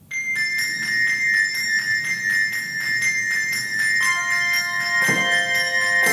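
A Christmas music piece begins with sleigh bells shaken in a steady rhythm over held, bell-like high tones; more notes join about four seconds in.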